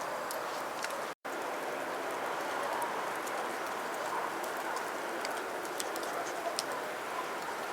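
Bonfire crackling: a steady hiss with scattered sharp pops, cut off briefly about a second in.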